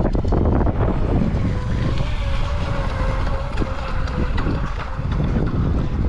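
Heavy wind buffeting the microphone, with the faint, steady whine of an RC speedboat's brushless motor out on the water through the middle few seconds, then fading.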